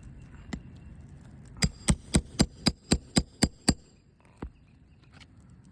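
Roofing hammer striking a nail puller about nine times in quick succession, roughly four blows a second with a metallic ring, driving it under a shingle nail to pull it; a lighter single tap comes before and after the run.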